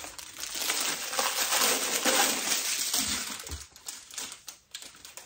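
Packaging around a folded fabric table runner crinkling and rustling as it is pulled out of a basket and unwrapped. A dense crackle for about three seconds, then thinning to scattered quieter rustles and ticks.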